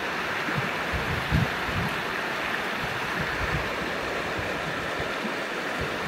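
A river flowing: a steady rush of running water, with a few soft low thumps over it.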